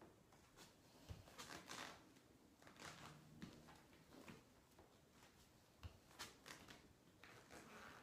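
Near silence with faint scuffs and a few soft thumps: sneakers stepping and sliding on a yoga mat as the feet walk in and out of a plank.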